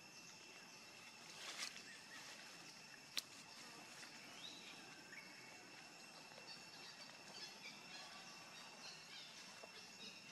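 Near silence: faint outdoor background with a steady high-pitched drone, a brief rustle about a second and a half in and a single sharp click about three seconds in.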